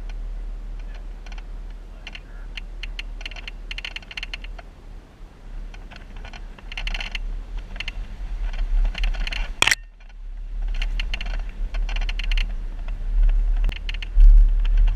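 Jeep on a rough off-road trail: repeated bursts of rattling and clicking over a steady low rumble. One sharp click comes about two-thirds of the way through.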